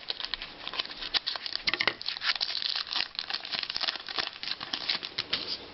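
A 2011-12 Panini Certified hockey card pack's wrapper crinkling and tearing as it is opened by hand: a dense run of irregular crackles and rustles.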